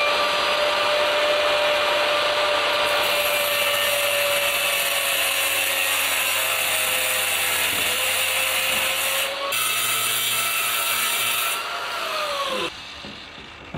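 Cordless power tool's blade cutting notches into ceramic wall tile along a grout line: a steady high whine over a gritty grinding noise. It winds down with a falling pitch near the end.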